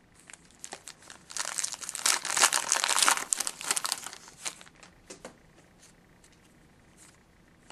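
Trading card pack wrapper being torn open and crinkled: a dense crackling for about three seconds, then a few lighter crinkles.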